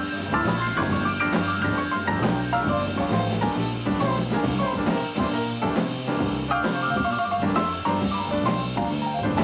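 Live acoustic jazz from a quartet: piano playing over double bass and drum kit, with cymbal strokes coming through steadily.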